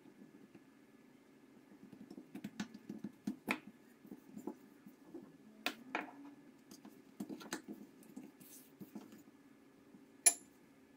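Quiet hand-work sounds of yeast dough being pressed and shaped on a silicone baking mat, with scattered light taps and clicks and one sharper click near the end, over a steady faint low hum.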